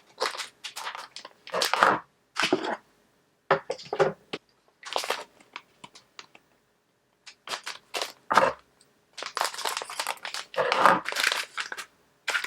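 Packaging being torn open and crinkled by hand to get a silicone Apple Pencil cover out: irregular rustling and crackling handling noises with brief pauses between them.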